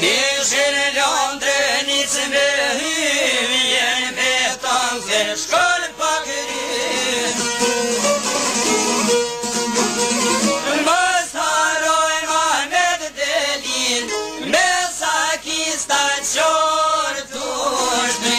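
Albanian folk song: singing over plucked string instruments, with a steady held tone underneath.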